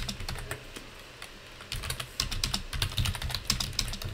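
Typing on a computer keyboard: runs of quick key clicks, a pause of about a second, then fast steady typing from near two seconds in.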